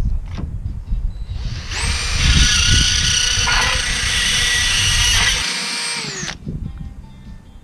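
Power grinder running with a steady high whine as it smooths the rough sawn edges of a notched slot, so the awning fabric won't tear on them. Low knocks and rumble come before the grinder starts, about two seconds in. About six seconds in, it spins down with a falling pitch and stops.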